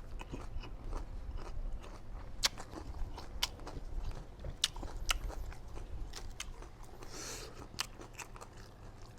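Close-up eating sounds: crisp crunching bites and chewing of shredded green papaya salad, with scattered sharp crunches a few times.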